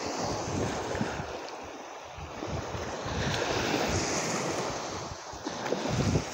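Surf breaking and shallow waves washing up over sand, a steady rushing that swells louder in the middle, with wind buffeting the microphone.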